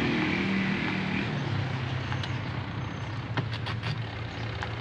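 Single-tub washing machine motor humming steadily as it runs, its pitch shifting slightly about a second in, with a few sharp clicks near the end. The motor runs on its capacitor with one lead bridged, so it turns one way only, with no reverse.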